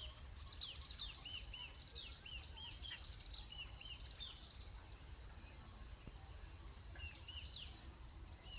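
Steady high-pitched drone of crickets or other insects, with faint short chirps from birds repeated in pairs, mostly in the first half and again near the end.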